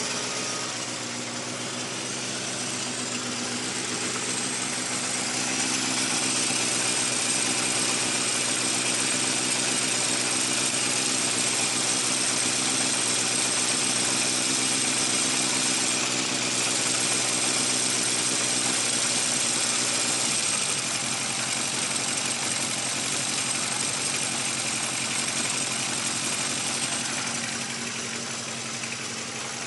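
Honda CB350F's air-cooled inline four-cylinder engine idling steadily.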